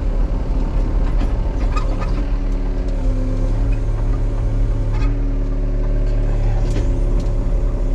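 Case compact excavator's diesel engine running steadily under the operator, its pitch shifting slightly as the hydraulics work, with a few light clicks and knocks.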